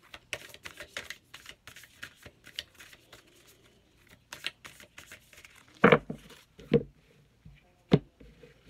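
A deck of reading cards being shuffled by hand, a quick run of soft papery clicks. Three louder knocks come near the end, as the deck is tapped or cards are set down on a surface.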